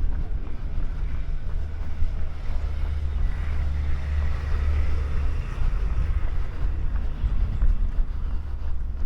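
Wind rumbling steadily on the microphone of a camera carried on a run. A faint hiss, like passing traffic, swells and fades in the middle.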